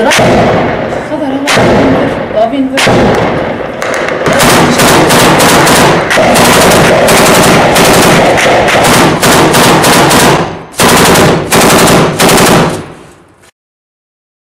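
Automatic gunfire at close range: scattered bursts, then a long stretch of near-continuous rapid fire, then three short bursts. It cuts off abruptly about a second before the end.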